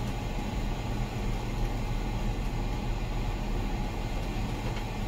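Steady low rumble of a ferry's engines and hull vibration, heard inside a passenger cabin.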